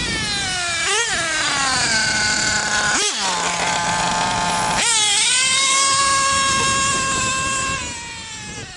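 Stage 1 JPX .28 two-stroke nitro engine in a Mugen MBX5T truggy, running at high revs with a high-pitched whine. Its pitch swoops down and back up about three times as the throttle is lifted and reapplied, then holds high and fades near the end as the truck pulls away.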